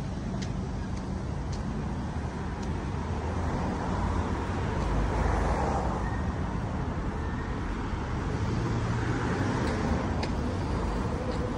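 Urban road traffic: steady noise of cars on the street, swelling as vehicles pass around the middle and again near the end.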